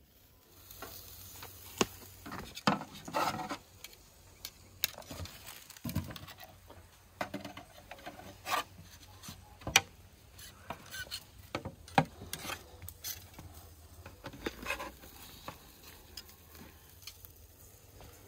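A knife blade scraping along metal shashlik skewers to slide grilled chicken wings off, with metal skewers clinking. Repeated sharp metallic clicks and knocks are spread through, between stretches of scraping.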